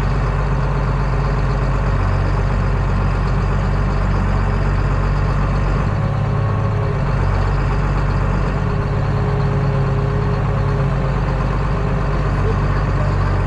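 Farm tractor's diesel engine running steadily, heard from inside the closed cab as it is driven, a continuous low drone.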